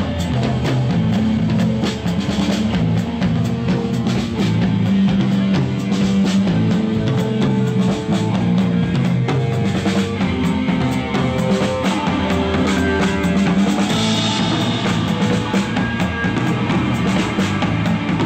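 Rock band playing live: drum kit, electric guitar and bass guitar.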